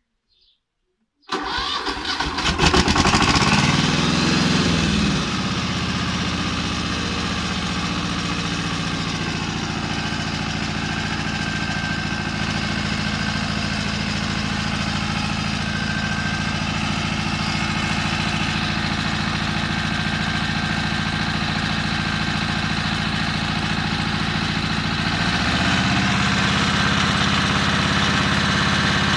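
Pasquali 425 tractor's air-cooled diesel engine cranked by the starter about a second in. It catches within about a second, runs up and settles to a steady idle. Near the end the engine speed steps up a little.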